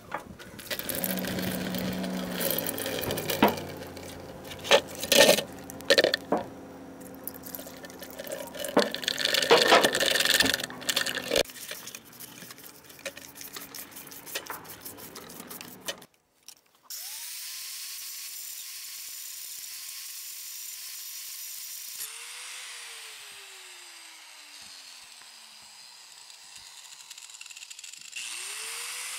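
Metal parts clattering and knocking as a lawn tractor differential is washed down with gasoline and scrubbed over a plastic bucket. After a break, an angle grinder spins up to a steady whine and runs free, then winds down with falling pitch, and starts up again near the end.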